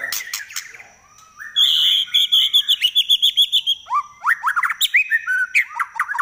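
White-rumped shama singing: a few sharp clicks, then a fast run of high repeated notes, about eight a second, followed by quick sweeping notes lower in pitch.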